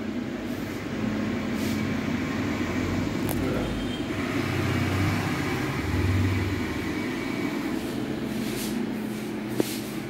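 Steady mechanical hum and whir with a rushing noise underneath. A sharp click comes near the end.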